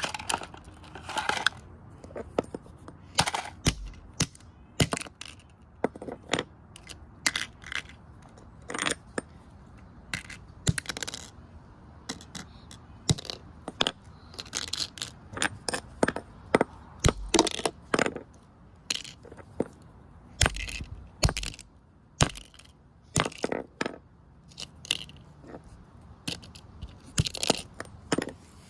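A Sylvania alarm clock being smashed apart: a long series of irregular sharp blows, roughly one or two a second, some with a low thud, and the clatter of breaking and scraping pieces.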